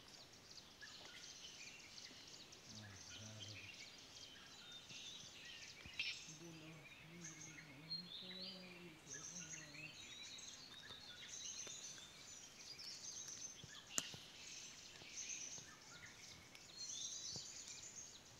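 Faint forest ambience of many quick, scattered bird chirps high in pitch, with a few sharp clicks.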